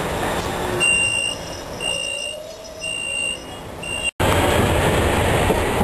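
Inside an Alstom Cityway low-floor tram, the running noise dies down and a high electronic warning beep sounds four times, about once a second. After an abrupt cut about four seconds in, the steady running noise of the moving tram returns.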